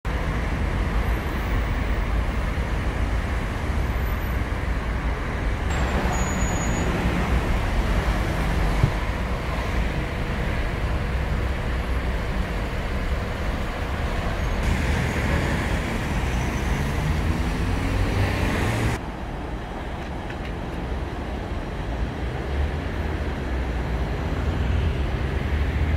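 City road traffic: a steady rumble of passing cars. About two-thirds of the way through, one vehicle accelerates and its engine note rises.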